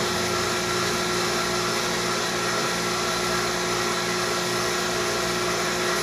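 A 7 CFM vacuum pump running with a steady, unchanging hum, pulling a deep vacuum on a small jar of water.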